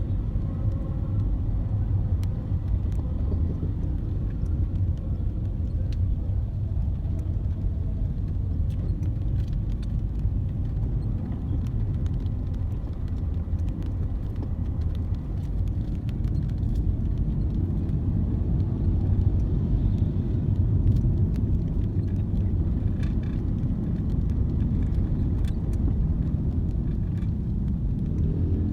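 Steady low vehicle rumble, with faint scattered ticks and clicks.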